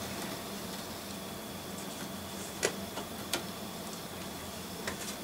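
Small electric motor of a Hornby 00 gauge LMS 0-6-0 tank loco running on a test track, a faint steady whir with a thin high whine. A few sharp clicks come about two and a half, three and a half and five seconds in.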